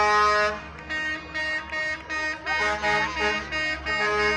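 Garbage truck's air horn: a held blast that stops about half a second in, then a rapid run of short toots, about three a second, and another long blast starting near the end. Faint crowd voices under the toots.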